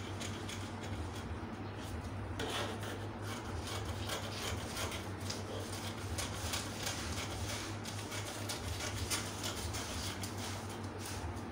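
Paper pattern pieces rustling and sliding on a table as they are cut apart and handled, in many small irregular crackles, over a steady low hum.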